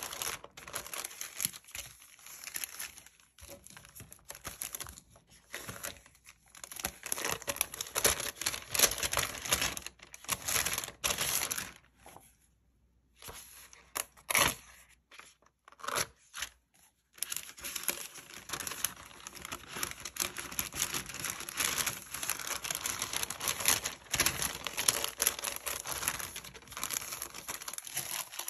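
Paper rustling and crinkling as a white paper envelope and memo pads are handled and shuffled, with many sharp crackles. It drops to near quiet for about a second halfway through, then rustles steadily again.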